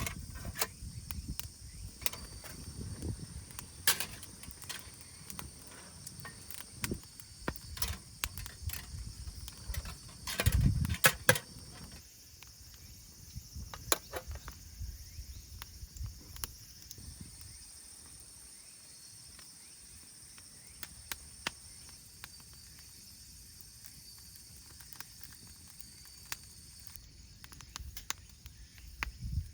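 Crickets or other insects trilling steadily, with scattered sharp clicks and knocks over it. About ten seconds in there is a louder low rustle and bump, like gear being handled.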